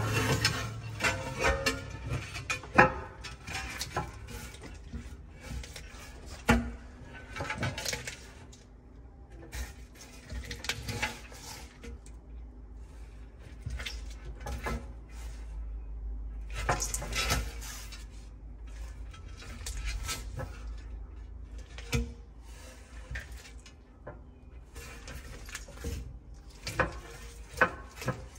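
Black-throated monitor lizard shaking and slapping a whole bass against a concrete floor while trying to swallow it: irregular knocks and scrapes, with a few sharp slaps among them.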